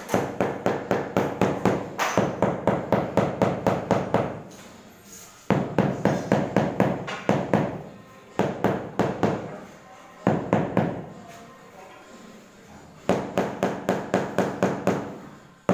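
Rubber mallet tapping a large porcelain floor tile, about five or six quick taps a second in runs of a few seconds with short pauses, each tap giving a short ring from the tile. The tile is being beaten down into its bed of fresh mortar to set it level with the tiles beside it.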